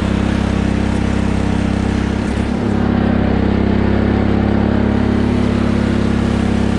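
Cub Cadet riding lawn tractor's engine running steadily while driving over a dirt trail, its pitch dipping briefly about two seconds in.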